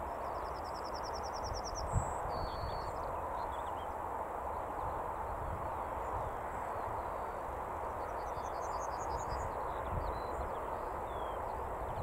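Yellowhammer singing twice, faintly, over a steady background hiss: each phrase is a quick run of repeated high notes, the first ending in a longer drawn-out note; the second phrase starts about 8 s in. Low bumps about 2 s and 10 s in.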